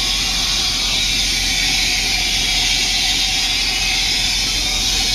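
Steady hiss of helium gas flowing through the fill hose into a high-altitude balloon as it is being inflated.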